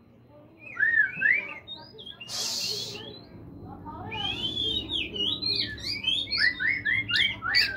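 Oriental magpie-robin singing: varied whistled phrases that glide up and down, starting about a second in and turning into fast, continuous warbling from about four seconds in, with a short harsh hiss about two and a half seconds in.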